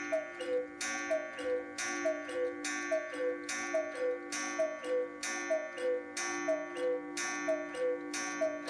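Mechanical cuckoo of a hand-carved 8-day Black Forest cuckoo clock calling the hour. Its two-note 'cu-ckoo', high then low, repeats a little faster than once a second. Each call comes with a sharp struck stroke whose ringing carries on between calls, typical of the gong such clocks strike with every call.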